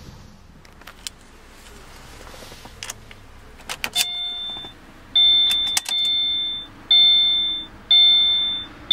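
A few sharp clicks, then from about four seconds in the Subaru Crosstrek's electronic warning chime dinging about once a second, each ding fading away. Under it is the faint low hum of the idling engine.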